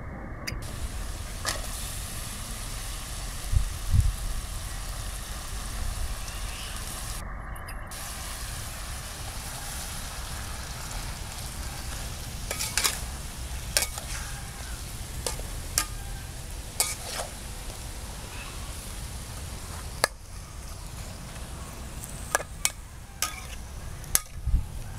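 Pork and sliced green tomatoes sizzling in a wok on a portable gas stove. From about halfway a metal spatula stirs them, with sharp clicks and scrapes against the wok.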